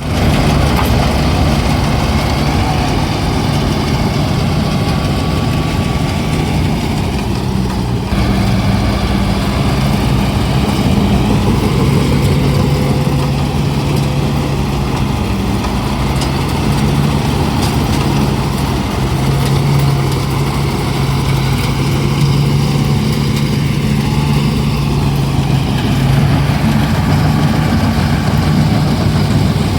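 A rice-harvesting machine's engine running steadily, its pitch shifting a little now and then.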